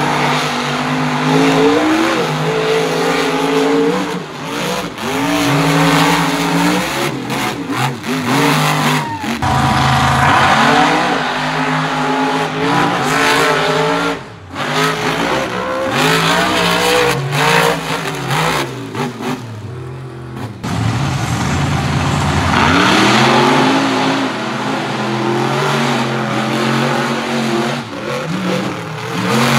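Monster truck engines revving hard and easing off again and again as the trucks race over sand jumps, the pitch climbing with each throttle burst and dropping back.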